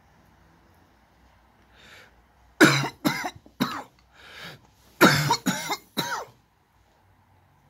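A person coughing in two bouts of about three hard coughs each, with a breath drawn in before each bout. It is the lingering cough of a COVID-19 infection on its eighth day.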